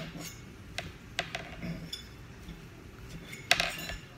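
Eating noises: a few sharp, light clicks and clinks, with a louder cluster of them about three and a half seconds in.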